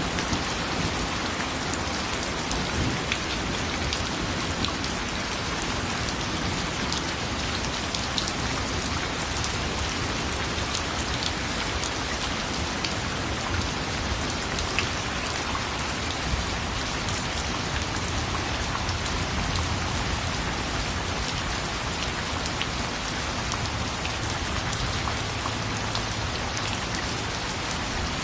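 Steady rain falling: an even hiss with many small drop hits scattered through it.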